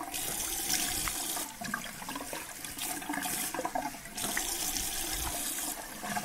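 Cold water running from a bathroom tap into the sink as the face is rinsed, the sound of the stream dropping and coming back a few times as hands catch and splash the water.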